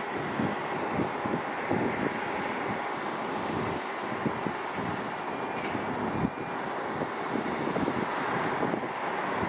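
The CFM56-7B turbofan engines of a Boeing 737-900 on final approach, a steady rushing jet noise with irregular low rumbling.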